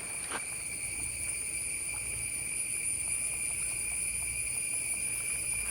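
Forest insects droning steadily in a high, unbroken whine, over a low rumble, with a faint click about half a second in.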